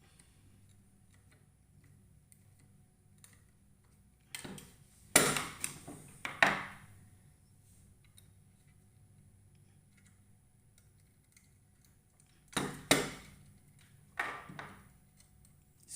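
Two short spells of sharp clicking and clattering, about four seconds in and again about twelve seconds in: small hand tools and plastic fire-alarm device parts being handled while cables are fastened into the terminals.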